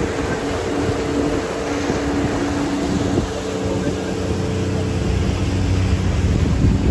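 Tour boat's engine running steadily, a constant hum under a rushing haze. Its note shifts slightly about three seconds in, and it grows louder toward the end.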